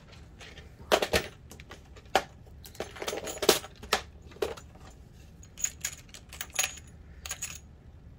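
A clear plastic compartment box of small metal bag hardware (end caps and rivets) being moved and handled: an irregular string of plastic clicks and small metal clinks, loudest about a second in and again around three and a half seconds.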